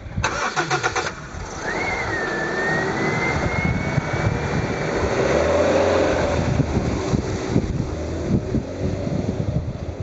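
A Honda CR-V's engine is cranked by the starter for about a second and catches. It then runs and pulls away over gravel, with a whine that rises and then holds steady. The engine note grows louder midway as the SUV drives up and past.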